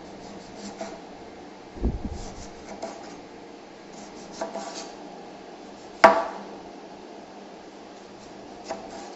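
Knife cutting limes on a wooden cutting board: soft slicing and light taps, a dull thump about two seconds in, and one sharp knock of the blade on the board about six seconds in, the loudest sound.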